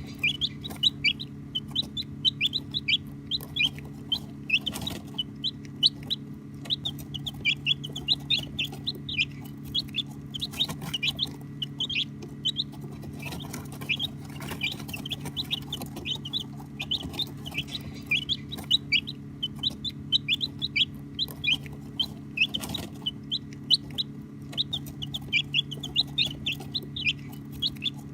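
A brood of baby chicks peeping continuously: many short, high chirps, each sliding downward, overlapping one another over a steady low hum.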